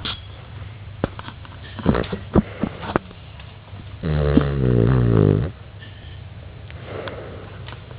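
Dog snoring: one loud snore about halfway through, a pitched, wavering drone lasting about a second and a half, with a faint breath later on. A few short clicks come before it.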